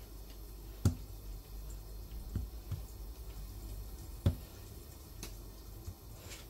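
Light handling sounds of dough being shaped into balls and set down on a kitchen countertop: a few soft taps and two sharp clicks, about a second in and again past four seconds, over a low steady hum.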